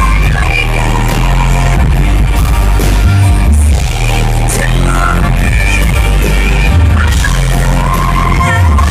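Loud live pop music: a band playing while a woman sings held, wavering notes.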